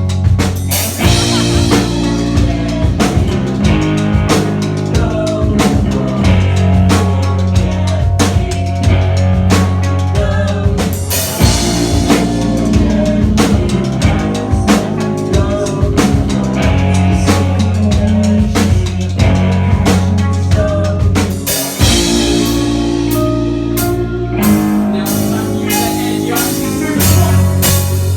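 Rock band playing a pop-punk song, loud, with the drum kit prominent over bass and guitars.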